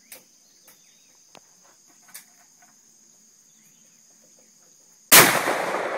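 A steady high insect trill with a few faint clicks, then about five seconds in a single Mosin-Nagant rifle shot (7.62×54mmR) goes off, the loudest sound by far, its report dying away slowly.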